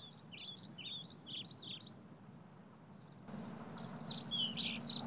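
Songbirds singing in a run of quick, swooping chirps, pausing briefly and then starting again louder, over a steady low outdoor rumble.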